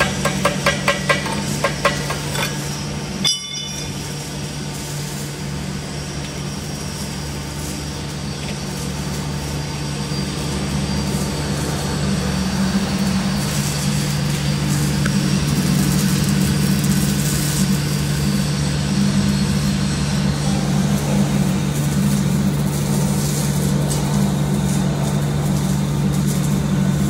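A steady, low mechanical hum of shop machinery, growing somewhat louder about ten seconds in. In the first two seconds it is overlaid by a quick run of light taps.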